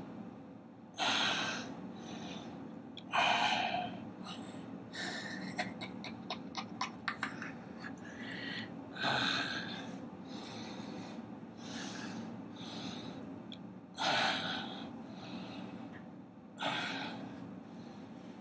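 A man's forceful breathing, sharp exhalations and gasps in about five loud bursts, as he strains to hold flexed bodybuilding poses. A run of quick clicks comes near the middle, over a steady low hum.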